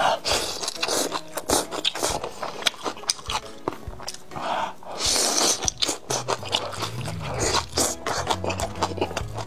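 Close-miked wet chewing and lip smacking of sauce-glazed fried skewers, many quick clicks and squelches. Soft background music comes in after about six seconds.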